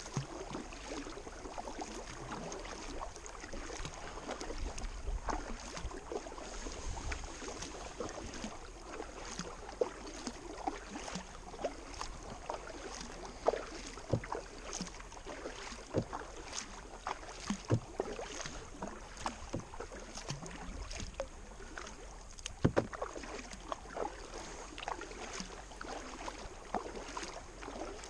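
A kayak being paddled against the current: the paddle blades dipping, splashing and dripping in irregular small splashes over a steady wash of water.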